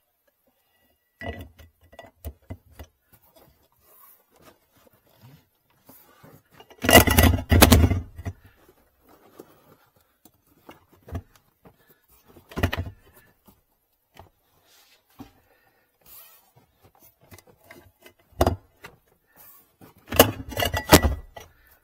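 Clunks, knocks and rattles of hardware being handled and refitted in a car's spare-wheel well. They come in several separate bursts, the loudest and longest about seven seconds in and another near the end.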